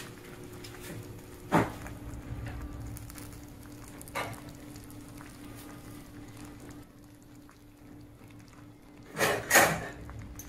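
A few sharp knocks and clicks as the slow cooker's glass lid is lifted off and set aside, the loudest about a second and a half in. Near the end come two short, louder rushing noises, all over a faint steady hum.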